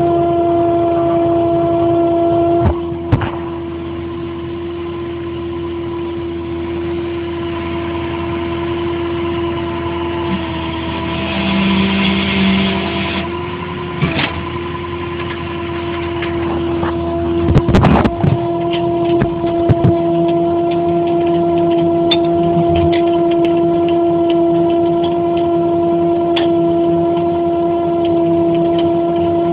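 Crane truck running with a steady mechanical drone and whine, with a few short knocks over it.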